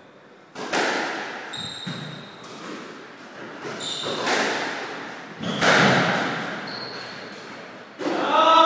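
Squash rally: the ball struck by rackets and hitting the walls, about six sharp hits that echo around the court, with shoes squeaking on the wooden floor between them. Near the end a player lets out a long drawn-out vocal sound.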